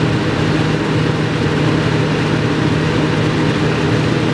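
Steady mechanical drone with a constant low hum.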